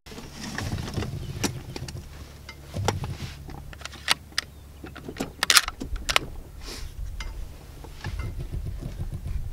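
Christensen Arms Mesa bolt-action rifle being handled as its bolt is worked to chamber a round: a string of sharp metallic clicks and rattles, the sharpest about five and a half seconds in.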